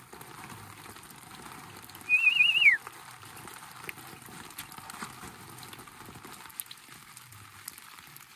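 A puppy gives one short, high-pitched whine about two seconds in, wavering quickly and dropping in pitch at the end.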